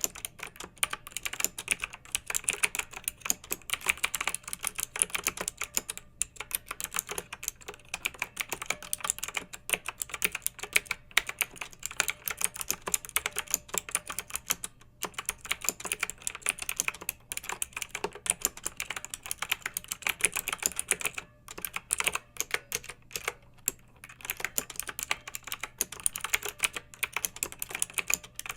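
Clicky mechanical keyboard being typed on in steady rapid keystrokes, with a few short pauses between runs.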